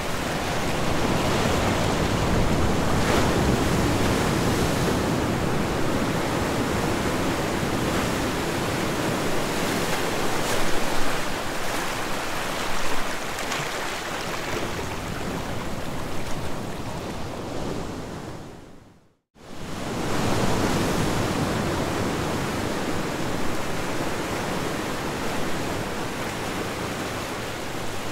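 A steady, even rushing noise, spread from deep to high, that fades out to silence for a moment about nineteen seconds in and then comes straight back.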